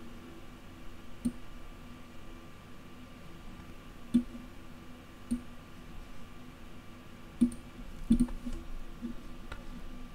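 Computer mouse clicking: about seven sharp single clicks, irregularly spaced, over a faint steady hum.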